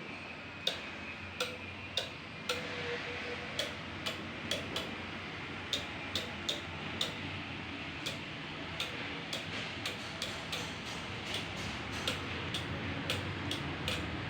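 Relays of a two-channel remote-control switch clicking on and off: about two dozen sharp clicks at irregular intervals, some in quick pairs, over a steady low hiss.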